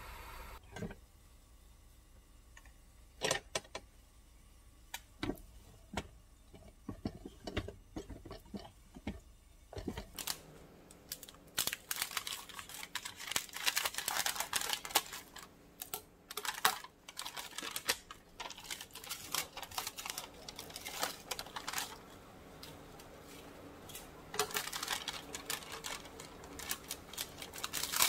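A few scattered sharp clicks, then from about ten seconds in a stiff plastic bag of seasoned laver crinkling and crackling as it is handled and cut open with scissors.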